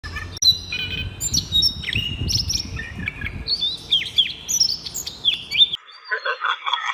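Songbirds chirping and whistling: many short, high calls, several with quick falling pitch, overlapping one another. A low rumble lies under the first half. Near the end the birds cut off and a denser, rougher sound takes over.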